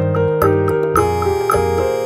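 Background music: a keyboard or electric-piano melody over a steady bass line, with notes struck at an even pace.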